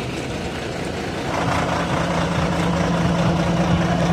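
Diesel engine of a parked Hyundai coach bus idling steadily, getting louder from about a second in.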